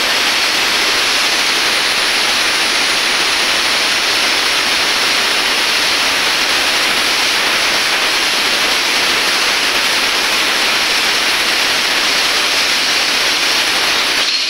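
CNC plasma cutter's torch cutting metal: a loud, steady hiss of the plasma arc and air jet. Right at the end the sound changes abruptly and turns thinner.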